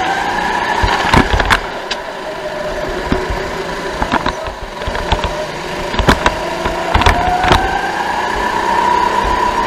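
Sodi go-kart's engine running under racing load, its pitch sagging through the middle and rising steadily in the last few seconds as the kart accelerates out of the corner. Several sharp knocks and rattles from the kart cut through the engine note.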